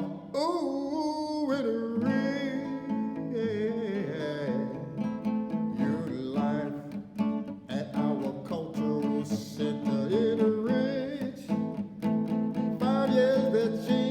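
Music: acoustic guitar accompaniment under a wavering sung melody, played as a theme song.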